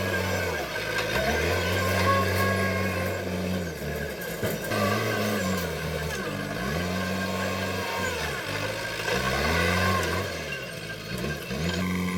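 JCB backhoe loader's diesel engine running, its pitch dropping sharply and climbing back again and again, several times across the stretch.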